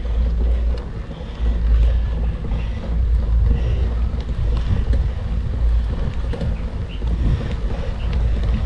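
Wind buffeting the camera microphone while riding: a loud, uneven low rumble that surges and eases, with a brief lull about a second in.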